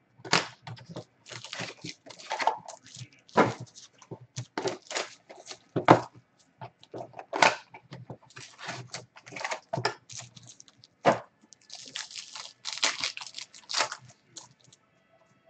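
A foil trading-card pack wrapper being torn open and crinkled by hand: irregular bursts of crackling and tearing.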